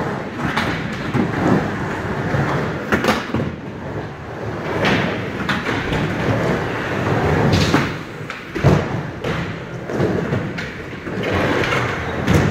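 Skateboard urethane wheels rolling on a wooden vert ramp, the rumble swelling and fading with each pass up and down the walls, broken by several sharp thuds of the board hitting the plywood on turns and landings. One of them is a backside air landing that comes down low on the transition.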